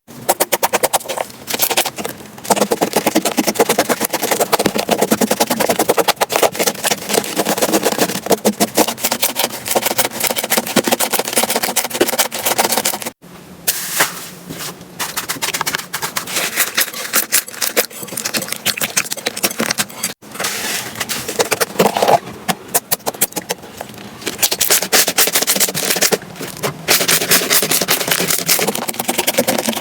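Slime being squeezed, poked and stretched by hand, giving dense, rapid crackling and popping clicks. The sound cuts off abruptly and starts again twice, about 13 and 20 seconds in.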